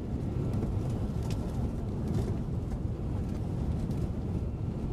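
Airbus A380 cabin noise in flight: a steady low drone of engines and airflow heard from inside the cabin, with a couple of faint ticks.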